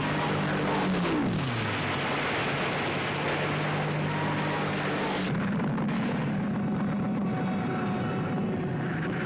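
Movie air-raid soundtrack: a warplane's engine dives past with a falling whine about a second in, over a steady engine drone and a dense din of gunfire. The mix changes abruptly about five seconds in.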